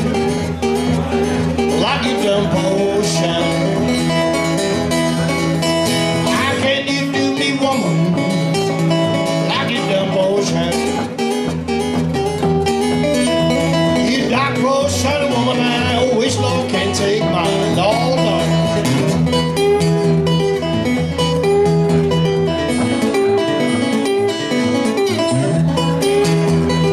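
Two acoustic guitars playing a blues together, picked notes over a steady bass line.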